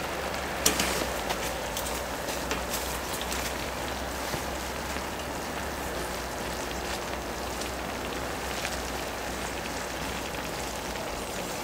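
Pork and kimchi stew bubbling and sizzling in a shallow cast-iron sot-ttukkeong (cauldron-lid pan) over a burner: a steady hiss with scattered small pops.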